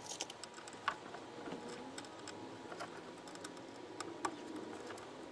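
Faint, scattered light clicks and taps of hands working at a car amplifier's wiring terminals, handling wire ends and a small tool.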